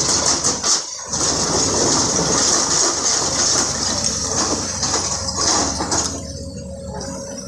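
Hydraulic excavators working a pile of broken stone: a loud, steady rushing and scraping of rock over the machines' engines, with a few clinks of stone early on. The noise dips briefly about a second in and eases after about six seconds.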